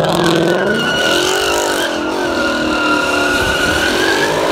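A car's engine revving up and down while its tyres squeal in a long, steady skid, as in a burnout or donut.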